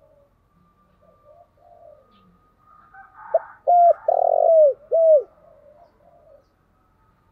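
Spotted dove cooing: a few soft coos, then about three seconds in a loud phrase of about five short, arching coos with one longer note in the middle.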